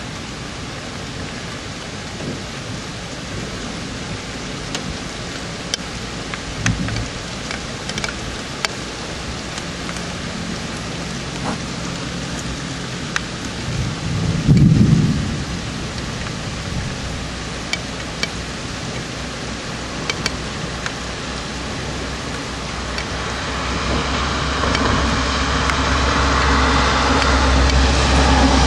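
Thunderstorm at night: steady rain with scattered sharp drip clicks, and a short low rumble of thunder about halfway through. Over the last few seconds the rushing noise swells louder.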